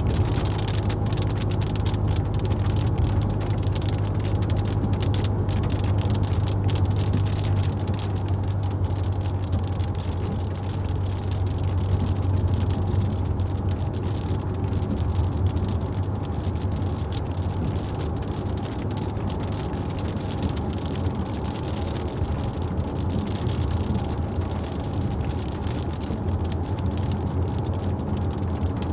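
A car driving on a wet road: a steady low drone of engine and tyre noise with the hiss of rain and spray.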